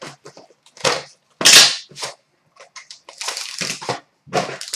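A card box being cut and torn open: short scratchy rips and crinkles of cardboard and wrapping, with one louder rip about a second and a half in.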